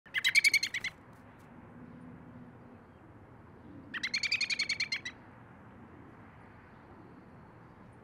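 American robin calling: two bursts of fast repeated notes, each about a second long, the first at the very start and the second about four seconds in.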